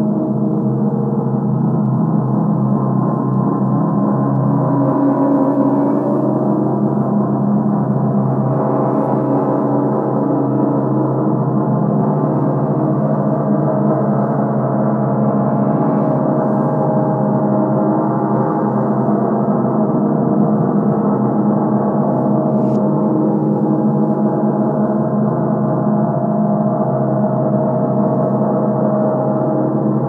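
Gong played in reverse: a steady, dense wash of many overlapping ringing tones, sustained without a break.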